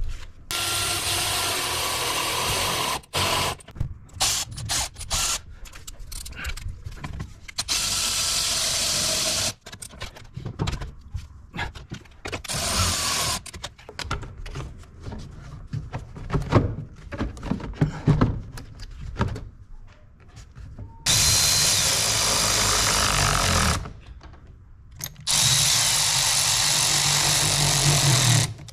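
Cordless electric ratchet running in about five runs of one to three seconds each, driving fasteners home while the intake tubing is refitted. Clanks and rattles of tools and parts come between the runs.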